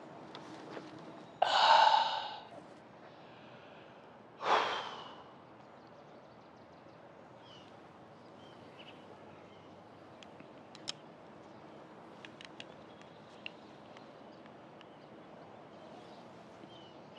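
A man sighing heavily twice as he sits down: a loud voiced groan about a second and a half in, then a breathy exhale about three seconds later, over faint outdoor background.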